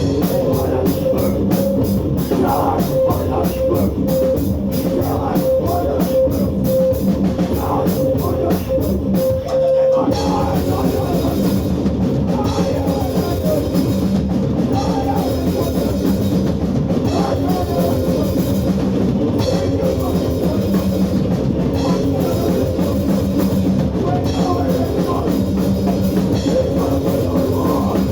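Live heavy hardcore band playing loud and fast, with distorted guitar and pounding drum kit. A steady tone is held over the first ten seconds, then the song changes section.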